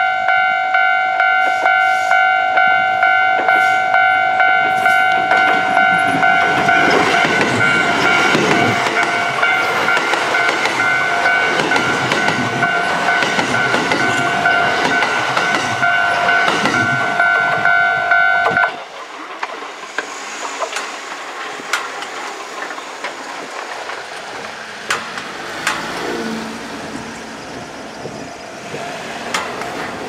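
Japanese level-crossing warning bell ringing in a steady repeating rhythm while a Kintetsu electric train passes with its wheels clattering over the rail joints. The bell cuts off suddenly about two-thirds of the way through, leaving the quieter, fading run of the train's wheels.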